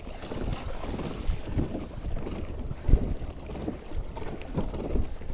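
Water slapping and lapping against a kayak's hull as it moves along, in irregular soft splashes, with wind buffeting the microphone.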